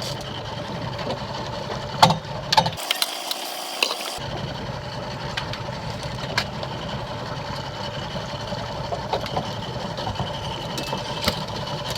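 Boat engine idling steadily, with a few sharp clicks or knocks along the way.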